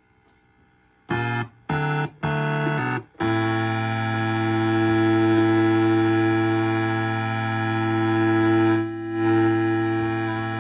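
Suzuki Omnichord OM-84 electronic chord instrument playing: three short chords about a second in, then one long held chord that dips briefly near the end.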